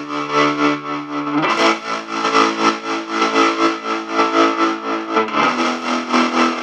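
Electric guitar played through the Unreachable Void pedal's distortion, tremolo and reverb: heavily distorted sustained chords pulsing in a steady rhythm. The chord changes about a second and a half in and again about five seconds in.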